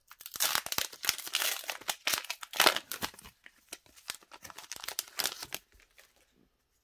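Foil wrapper of a Pokémon TCG booster pack crinkling and tearing as it is opened and the cards are pulled out: a dense run of crackles that stops near the end.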